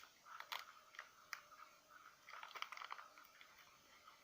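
Faint, irregular clicks and scrapes of a utensil stirring a thick, clumping powder-and-milk dough in a bowl, busiest a little past halfway through.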